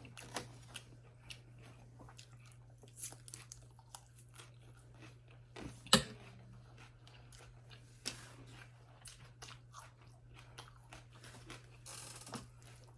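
A person chewing and biting food close to the microphone, with scattered soft crunches and mouth clicks and one sharp, louder click about six seconds in.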